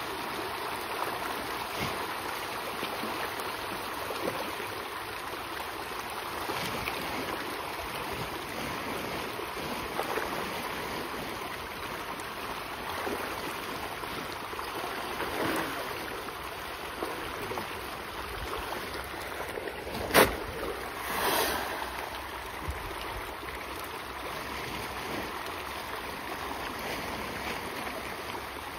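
A crowd of pond fish splashing and churning the water surface as they feed: a continuous wash of small splashes. About twenty seconds in comes one sharp, loud knock, and a second later a short, louder rush.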